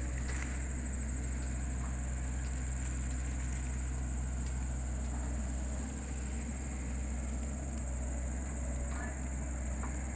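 Insects chirring in a steady high-pitched drone, over a steady low hum, with a few faint ticks near the end.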